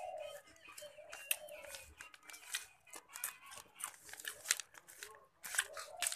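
Crinkling and crackling of a food wrapper as a hand scoops and mixes rice on it, in many short irregular crackles.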